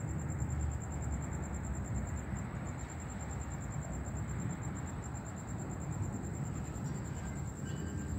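Thunderstorm ambience: a steady low rumble under an even hiss of wind and rain, with no sharp cracks.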